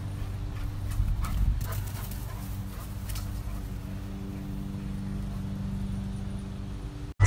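A dog galloping across a grass lawn, with a few scattered thumps and clicks from its running, over a steady low mechanical hum.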